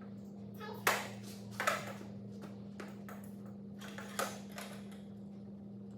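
Metal clicks and knocks from a C-stand as its knuckles are loosened and the risers are slid down. There are sharper knocks about a second in, near two seconds and just after four seconds, over a steady low hum.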